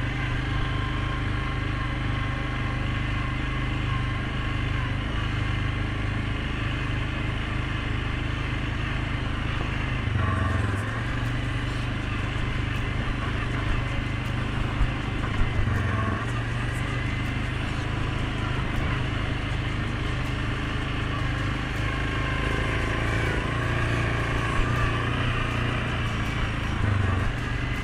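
Suzuki King Quad 750 ATV's single-cylinder four-stroke engine running under way on a trail, its note shifting a few times as the throttle changes.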